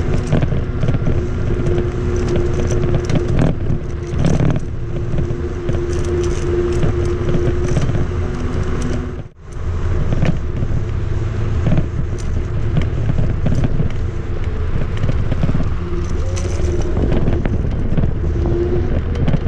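Electric scooter being ridden over rough ground: loud rumble and wind noise on the microphone, with a steady motor hum. The sound drops out briefly about halfway through.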